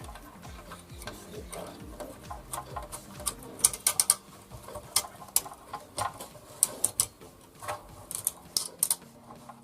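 Irregular small clicks, taps and clatter of hands working on a mixer grinder's motor while fitting new carbon brushes.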